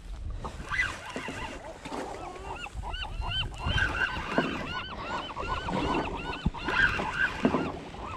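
Birds calling: a run of short, arched squawks in quick succession starting a couple of seconds in, over wind and boat rumble.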